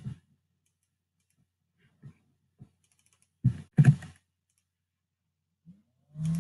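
Computer keyboard and mouse clicks: a couple of sharp clicks at the start, two faint ticks, then a quick cluster of clicks about three and a half to four seconds in. Right at the end a low steady tone with higher overtones starts.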